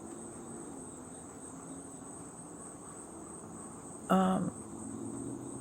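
Crickets chirring in a steady high-pitched drone, with the neighbours' ducks quacking faintly underneath and one short, louder call about four seconds in.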